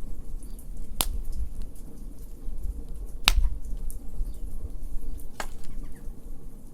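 Wood fire crackling, with a steady low rumble under scattered small ticks. Three sharp pops stand out: about a second in, a little past three seconds (the loudest) and about five and a half seconds in.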